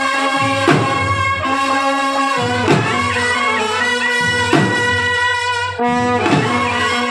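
Brass band playing: trumpets and a euphonium-type horn sounding a held, steady tune over drum beats that strike about once a second.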